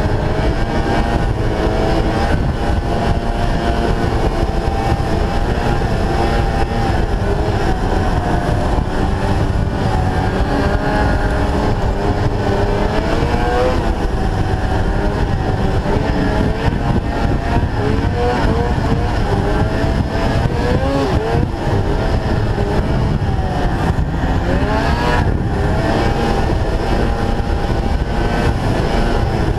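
Snowmobile engine and track running at speed from the rider's seat, the engine's pitch wavering up and down with the throttle. Heavy wind buffets the microphone underneath.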